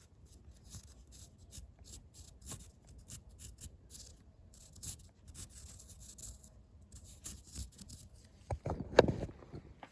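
Irregular short scratching and scraping strokes of a tool etching fine patterns into a pine-wood carving. A few louder knocks near the end.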